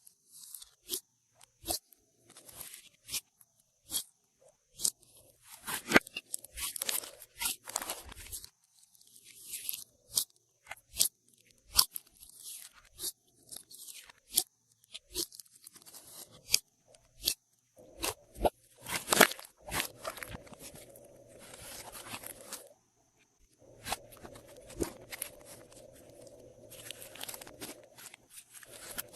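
Hands squishing, poking and stretching glossy slime with items mixed into it: irregular sharp sticky clicks and pops, with stretches of crunchy crackling between them.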